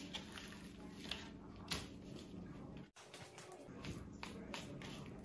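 Faint soft handling sounds of gloved hands working seasoning into raw steaks, then a silicone brush spreading oil over them, with a few light taps. The sound cuts out briefly about three seconds in.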